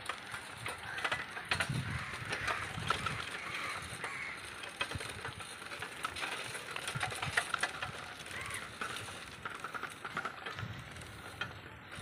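Bicycle being ridden: tyre noise with frequent small rattles and clicks.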